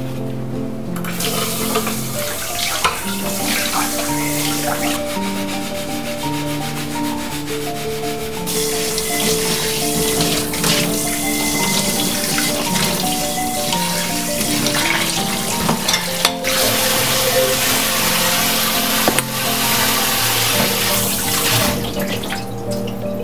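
Kitchen tap running into a sink during washing up; the flow shifts a couple of times and stops near the end. Soft background music with held notes plays throughout.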